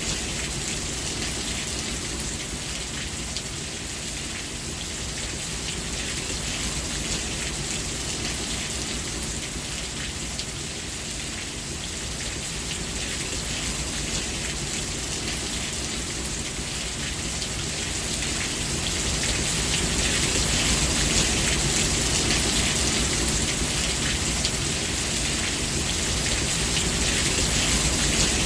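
Steady rain falling and pattering on a surface, with a low rumble underneath; the rain grows somewhat heavier about two-thirds of the way through.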